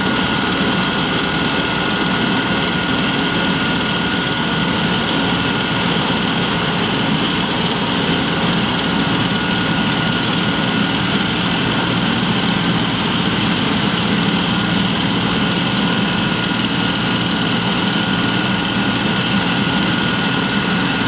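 Heavy diesel farm machinery running steadily at a constant pace, with a steady high whine over a low engine drone.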